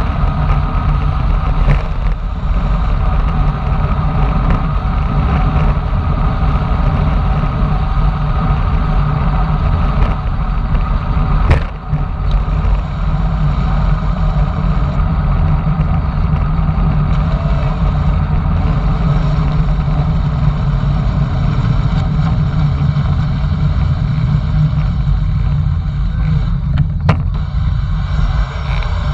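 Wind rushing over an action camera's microphone as a road bicycle rolls downhill at speed: a loud, steady roar, strongest in the deep lows. A single knock about eleven and a half seconds in.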